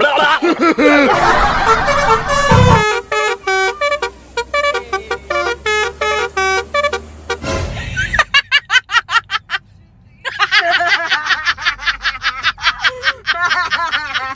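Telolet bus horn playing quick melodic runs of short toots at several pitches, with a break of about half a second a little past the middle.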